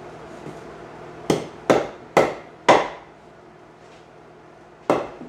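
Hammer blows on the steel undercarriage frame of a John Deere 40C crawler, tapping it into alignment: four strikes about half a second apart, then one more about two seconds later, each ringing briefly.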